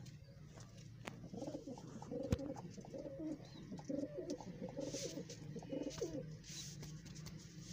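Pigeons at the nest cooing, a run of low repeated coos starting about a second and a half in and ending around six seconds. A single sharp click about two seconds in.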